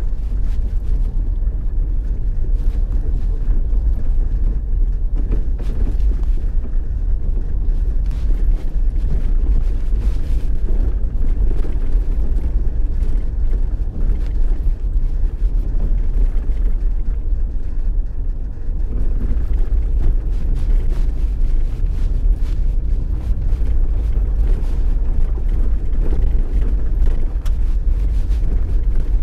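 Steady low road rumble from a moving vehicle, with wind buffeting the microphone throughout.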